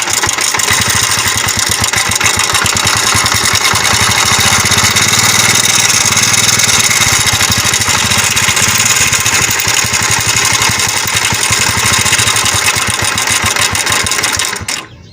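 Honda CD70's single-cylinder four-stroke engine running with a rapid clatter from the cylinder head. The mechanic is sure it comes from a worn timing chain and cam sprocket. The engine is switched off near the end.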